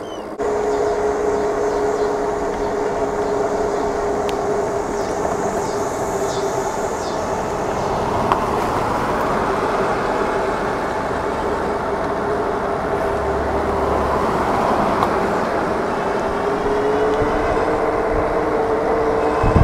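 Super73 RX electric bike cruising on pavement: a steady whine over the hum of its fat tyres and wind noise. The whine rises in pitch near the end as the bike picks up speed.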